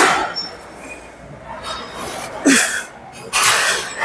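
A person's forceful, noisy breaths, three short blasts, with a brief low grunt on the second one, about two and a half seconds in.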